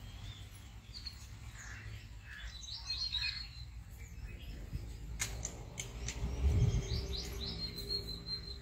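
Small birds chirping and twittering in short high calls, with a run of rapid high notes near the end. A low background rumble swells briefly about six and a half seconds in, and there is a single sharp click about five seconds in.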